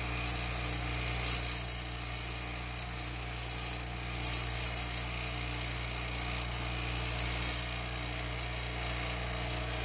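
Bench grinder motor running with a steady hum while a stainless steel antenna whip is touched against the wheel in a series of short strokes, each a hissing grind, rounding off the cut tip. Near the end the grinding stops and only the motor hum remains.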